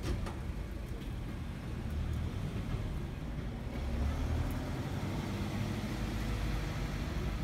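Steady low rumble of distant road traffic, growing a little louder about halfway through.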